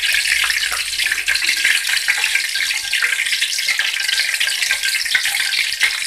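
Shrimp-and-vegetable batter fritters (bakwan udang), freshly dropped in, deep-frying in a wok of hot oil: a steady sizzle thick with small crackling pops.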